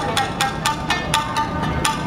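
Tsugaru shamisen played with hard, quick plectrum strokes, about four to five struck notes a second, each ringing briefly.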